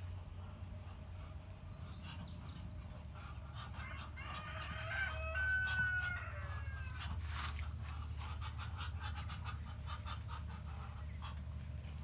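Muscovy ducks calling in raspy voices: a run of short calls with pitch glides about four to seven seconds in, the loudest part, with fainter calls a little before.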